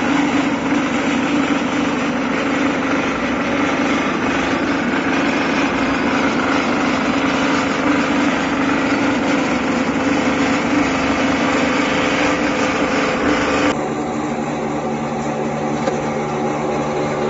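Small feed pellet mill running under load: a steady mechanical hum and rattle as feed is pressed through the die and pellets pour from the chute. Near the end the sound changes abruptly to a lower, slightly quieter hum of a second mill.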